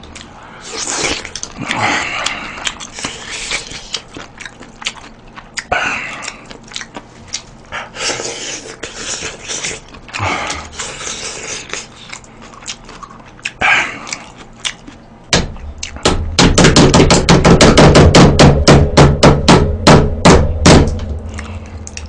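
Eating sounds while shelling mussels by hand: scattered clicks and scrapes of the shells and mouth noises. About two-thirds of the way through comes a much louder run of rapid clicking, about five clicks a second, lasting some five seconds.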